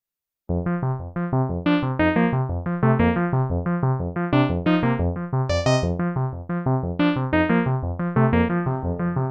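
Sequential OB-6 analog synthesizer playing a sequenced FM patch, with VCO 2 cross-modulating the first oscillator, recorded dry. A quick run of short, bright pitched notes, about five a second, starts about half a second in.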